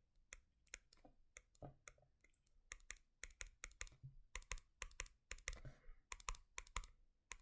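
Faint, irregular light clicks and taps, many coming in quick clusters, like keys being pressed.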